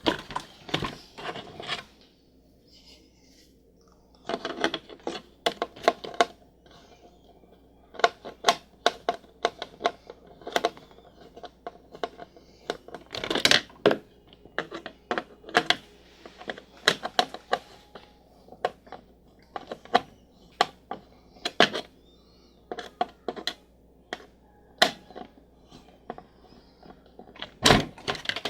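Irregular sharp clicks and taps of a screwdriver working out the screws that hold a die-cast model car to its plastic display base.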